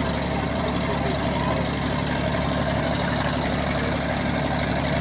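Engine of a regional Amazon riverboat running steadily under way: an even, unchanging low drone with a hum of engine tones.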